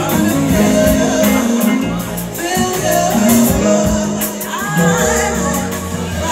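A woman singing live into a microphone, backed by a band with drums, cymbals and keyboard.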